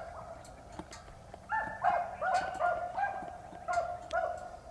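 Beagles baying as they run a rabbit's track: short, repeated barks several times a second. They fall quiet for about a second near the start, then start up again.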